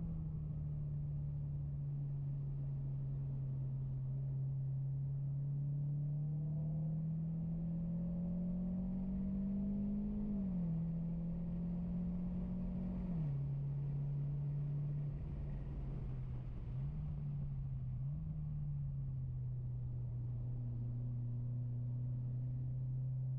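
Mitsubishi Lancer Ralliart's turbocharged 2.0-litre four-cylinder engine heard from inside the cabin while being driven hard. The engine note climbs steadily, drops sharply with upshifts about ten and thirteen seconds in, dips briefly twice, then holds at a lower steady pitch.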